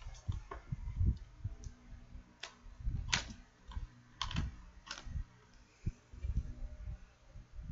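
Irregular typing and clicking on a computer keyboard, with dull low knocks in between.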